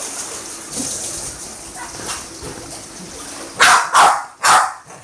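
A dog barks three times in quick succession, short sharp barks about half a second apart, near the end. Faint pool-water sounds can be heard before them.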